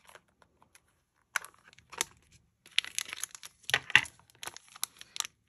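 Small clear plastic bags of charms crinkling and rustling as they are handled, with sharp light clicks and taps from a small plastic box set down on a desk. It starts about a second in and gets busier toward the middle.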